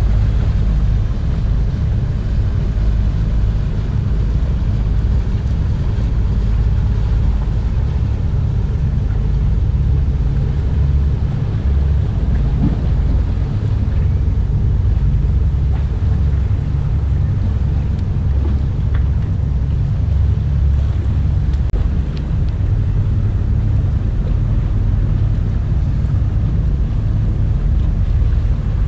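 Wind buffeting the microphone: a steady low rumble that runs on without a break.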